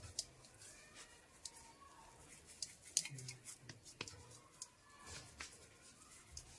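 Faint handling sounds of hands rolling and pressing soft vegetable seekh kebab mixture between the palms, with a few small sharp clicks and taps scattered through.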